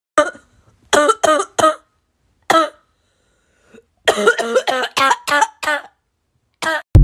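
A person coughing in fits: a single cough, a quick run of four about a second in, another single one, then a long run of seven or eight coughs starting about four seconds in.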